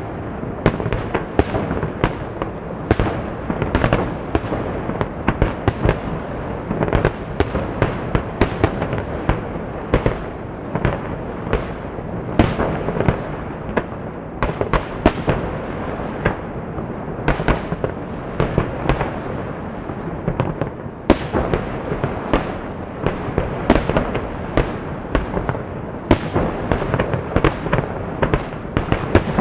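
Water starmine fireworks display going off in a dense, continuous barrage: many sharp bangs of bursting shells over a steady rumble.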